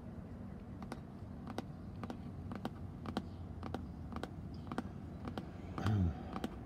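Fingertips tapping slowly on a hard white plastic surface: single sharp taps, about two a second. About six seconds in there is a brief, louder low sound that falls in pitch.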